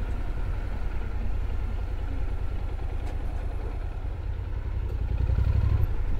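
Honda NC750X parallel-twin motorcycle engine running at low speed, a steady low pulsing rumble that swells briefly near the end.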